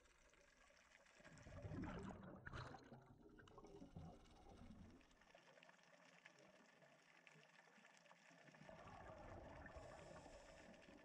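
Faint underwater sound of a scuba diver's exhaled bubbles: a burst about two seconds in and a softer one near the end.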